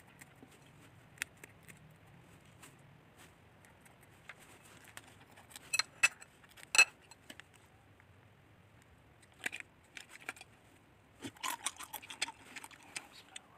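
Scattered small snips and clicks of scissors cutting chillies, then crinkling and sharp snaps of a plastic soy sauce sachet being handled and torn open, the loudest about six to seven seconds in, with more crinkly rustling near the end.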